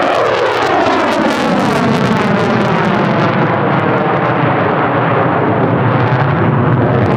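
An F-35A Lightning II's single F135 jet engine passing low and loud, with a steady falling sweep in its sound as the jet goes by.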